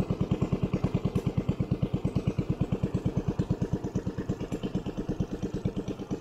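Small boat's engine running at slow trolling speed with a steady, even pulse of about nine beats a second.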